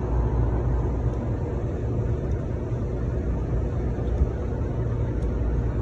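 Steady low machinery rumble, with a couple of faint small clicks in the second half.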